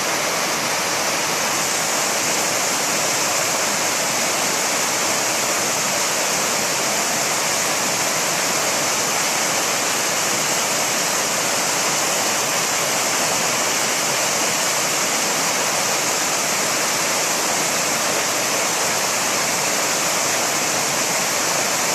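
Waterfall: water falling and splashing in a steady, even rush that neither rises nor falls.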